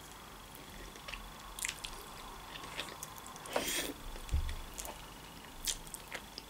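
A person biting into and chewing a boiled khinkali dumpling: a few scattered soft, wet smacks and squelches.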